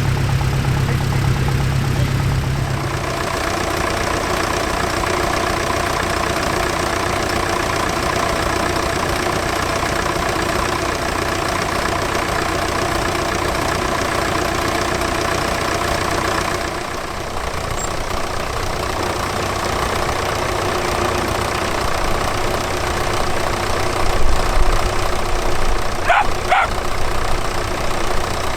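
Tractor engines running steadily, their note shifting about three seconds in and again a little past halfway. A dog barks a few times near the end.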